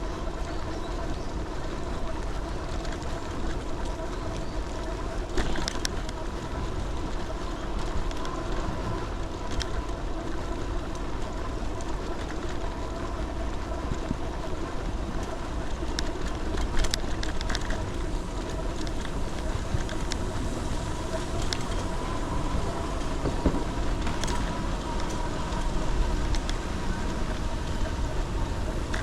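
Vehicle on the move: a steady running drone with a constant whine, low rumble from wind on the microphone, and a few scattered clicks.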